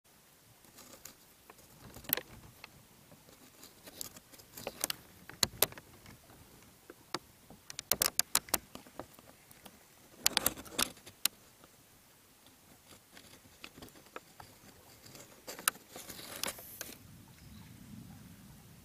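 Intermittent crinkling rustles and sharp clicks from a plastic bag being handled, in short clusters with quiet gaps between.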